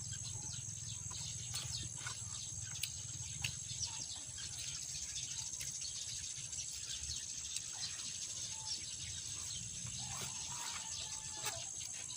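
Steady high insect drone, like crickets trilling, with a low hum beneath and scattered small clicks and taps throughout.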